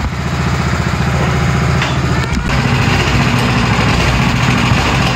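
Small engine of a ride vehicle running steadily at close range, with a fast pulsing beat; its note shifts slightly about two and a half seconds in.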